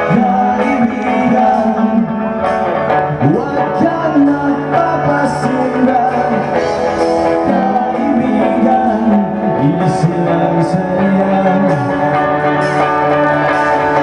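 Live rock music: a band playing loudly and steadily, with guitar and some singing.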